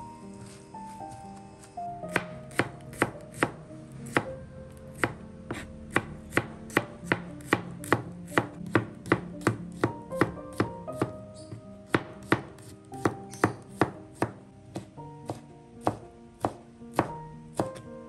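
Kitchen knife chopping shallots, garlic and red chillies on a plastic cutting board: a run of sharp taps, about two to three a second, starting about two seconds in.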